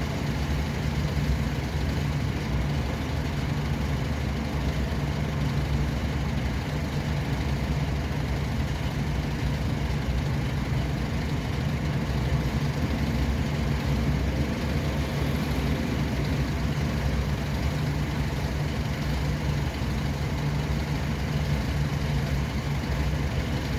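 Steady low drone of vehicle engine and road noise, even throughout with a deep hum.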